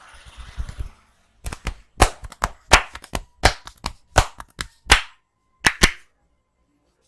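A barber's hands slapping and clapping in a percussive head massage: soft low pats, then a quick, uneven run of about seventeen sharp smacks, ending with a pair after a short pause.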